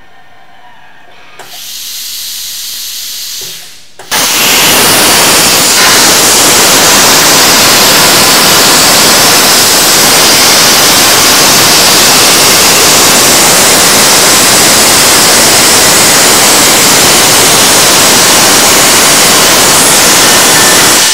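ESAB PowerCut 900 plasma cutter torch on a Crossbow CNC table cutting plate steel. A softer hiss starts about a second and a half in. About four seconds in, the arc strikes suddenly and cuts with a loud, steady hiss.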